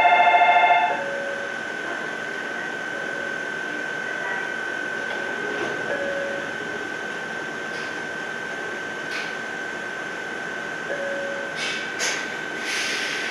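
Station departure bell ringing with a rapid pulse, stopping about a second in. Then the standing train's steady high-pitched whine over a low hum, with a few clicks and a short hiss of air near the end.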